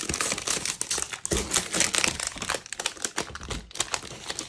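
Clear plastic sleeve crinkling, with paper sheets rustling, as a pack of specialty designer series paper is handled and worked in and out of its wrapper, in an irregular run of crackles.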